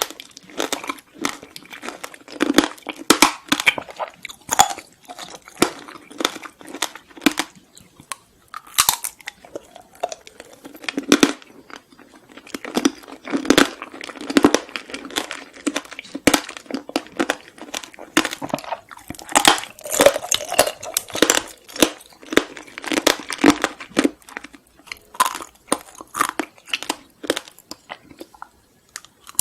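Crunching and chewing of Korean sweets and snacks, a steady run of irregular crisp crackles and clicks.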